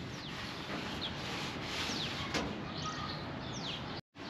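Birds chirping faintly outdoors: a handful of short, high, downward-sliding chirps spread over a few seconds, over a steady low background hiss.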